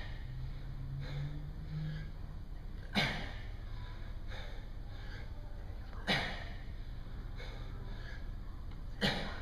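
A man breathing hard during push-ups: three sharp, forceful exhales about three seconds apart, one per rep, with fainter breaths between.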